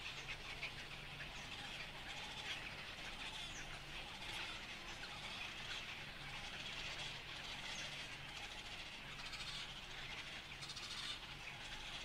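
Painted stork chicks begging for food at the nest: a continuous chorus of many short, high calls from the hungry young.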